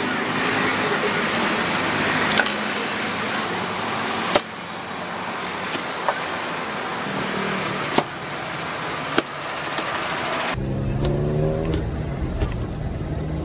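A large knife knocking sharply on a cutting board several times as a watermelon is sliced, over steady street traffic noise. About ten seconds in, the background changes abruptly to a lower rumble, like an idling engine.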